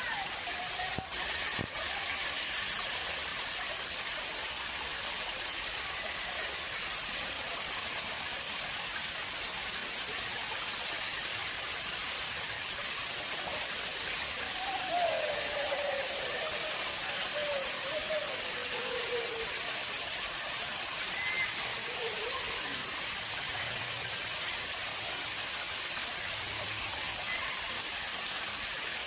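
Water flowing and splashing steadily in an artificial pond: a continuous, even rush of running water.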